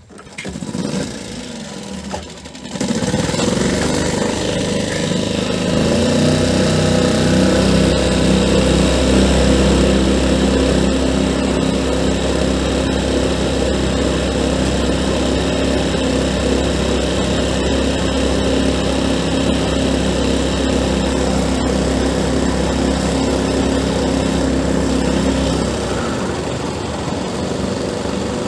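A small boat motor running steadily as the boat travels along the river, coming up to speed in the first few seconds and easing back a little near the end.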